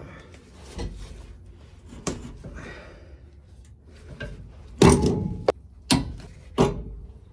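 Metal clanks and knocks from locking pliers clamped on a seized, welded-on bolt being wrenched back and forth against a steel bracket. A string of separate hits, the loudest about five seconds in with a short metallic ring, followed by three more knocks close together.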